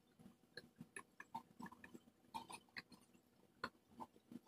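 Faint, irregular clicks, taps and light rustles of plastic front grille parts and their plastic wrapping being handled and worked with a screwdriver, with one sharper click about two thirds of the way through.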